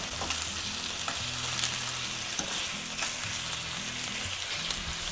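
Chicken pieces sizzling as they sauté in hot oil in a frying pan, a steady hiss with small crackles, over a faint low steady hum.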